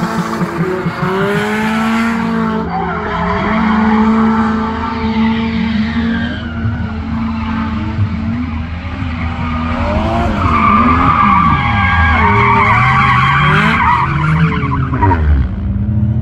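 Drift car engine revving up and down as the car slides, with tyres squealing against the skid pad. The tyre squeal is strongest from about ten to fifteen seconds in, and the revs drop sharply just before the end.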